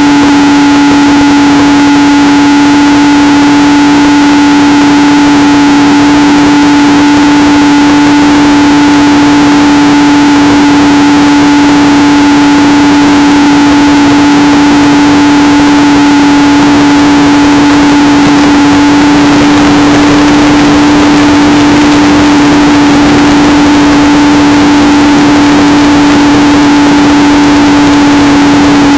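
Radio-controlled plane's motor and propeller running in flight as heard from its onboard camera: a loud, steady hum of almost constant pitch over a rush of wind noise.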